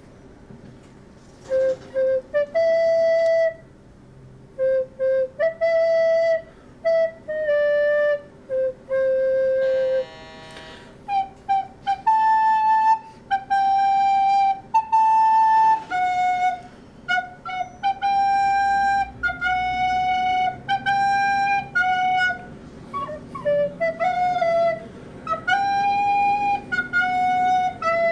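Recorder playing an improvised melody of separate notes, some short and some held for about a second, over a faint steady low hum.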